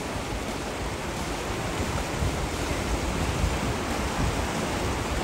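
Steady rush of a fast-flowing river, with uneven low rumbling underneath.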